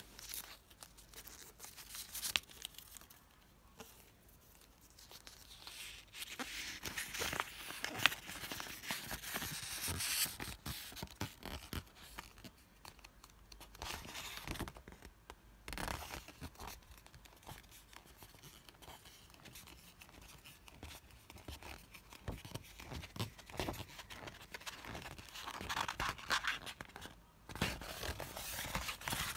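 Paper handling: the paper wrap is pulled off a rolled poster calendar and the stiff glossy sheet is unrolled, rustling, scraping and crinkling under the hands in irregular bursts with small clicks.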